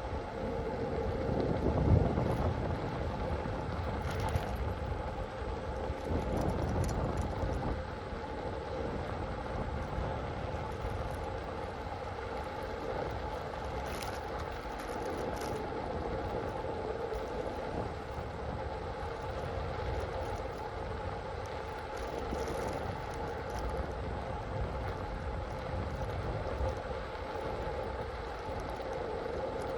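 A vehicle running steadily with a constant hum, heard over wind rushing across a body-mounted phone microphone, with a couple of brief knocks.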